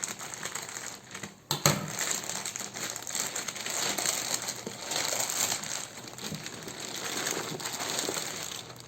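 Packaging being handled and opened during an unboxing: continuous crinkling and rustling, picking up about a second and a half in.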